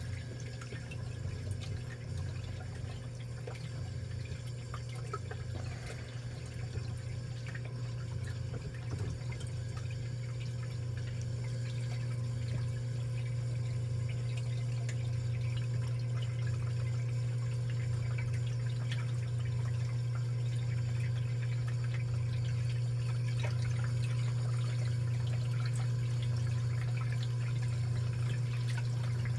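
Reef aquarium sump system running: water pouring and trickling over a steady low pump hum, with the protein skimmer just started and not yet tuned. The sound slowly grows a little louder.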